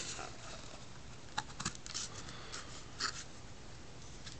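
Plastic snap-on lid being pried off a takeout food cup: a handful of faint clicks and rustles of the plastic rim, scattered through the middle.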